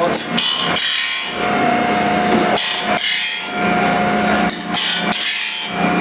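Grinding stone of a saw-sharpening rig rasping against the steel teeth of a circular shingle saw blade, in repeated strokes about a second long with short breaks between, over a low steady hum.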